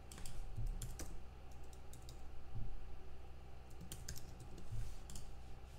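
Typing on a computer keyboard: irregular, quick key clicks, over a low steady hum.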